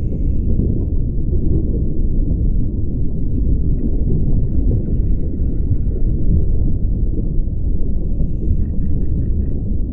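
Steady, muffled underwater rumble picked up by a camera in its housing on a scuba dive, with faint high tones and about four quick faint ticks shortly before the end.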